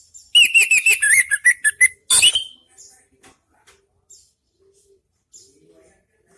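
Orange-headed thrush singing a loud, quick phrase of varied whistled notes for about a second and a half, ending in a harsh rasping note, followed by a few faint soft calls.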